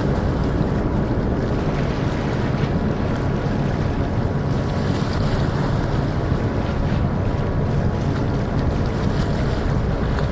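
Steady wind rumbling on the microphone, with no distinct firework bangs.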